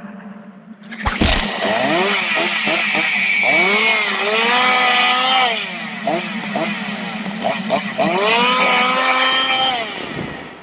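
A sudden loud hit about a second in, then a two-stroke chainsaw revved up and down over and over, its pitch rising and falling with each rev.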